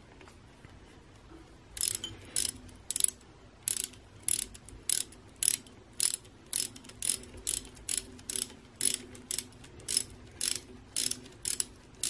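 Socket ratchet clicking as it is swung back and forth, tightening a bolt in the end cap of an electric trolling motor's housing. Sharp clicks, about two a second, begin about two seconds in.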